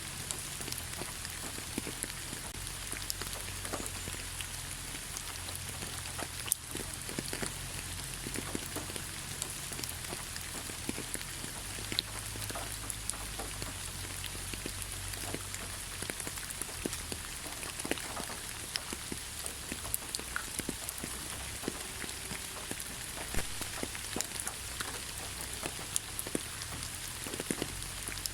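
Gentle rain falling on leaves: a steady hiss with many individual drops ticking at irregular intervals.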